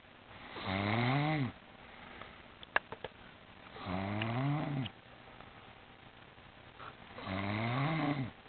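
A woman snoring in her sleep: three long snores about three seconds apart, each rising and then falling in pitch. A brief sharp click between the first two snores.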